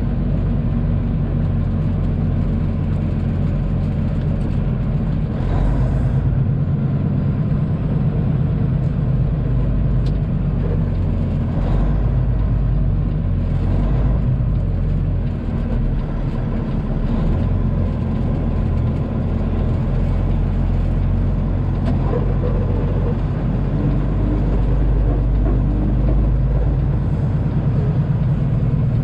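Peterbilt semi truck's diesel engine running as the truck drives along, heard inside the cab as a steady low drone with road noise.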